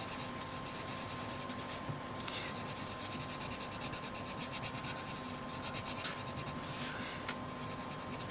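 Green Bambino crayon scratching steadily across paper as leaves are coloured in, with a few faint clicks.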